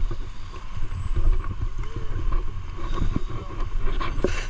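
Wind buffeting the microphone over sea water sloshing and washing against a concrete breakwater, with a short knock near the end.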